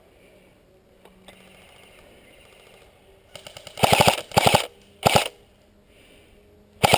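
Airsoft gun firing in full-auto bursts: a quick run of shots starts about three seconds in, followed by three loud bursts over the next two seconds and one more short burst near the end.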